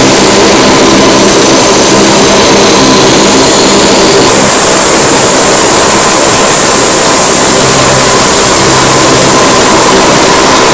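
Lockheed P-3 Orion's Allison T56 turboprop engines running on the ground: a loud, steady propeller drone with a high turbine whine. The tone of the whine changes about four seconds in.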